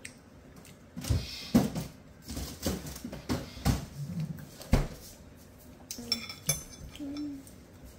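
Metal spoon and chopsticks knocking and scraping against a soup bowl as a child eats: a string of irregular clinks and taps, loudest about a second and a half in and again near five seconds in.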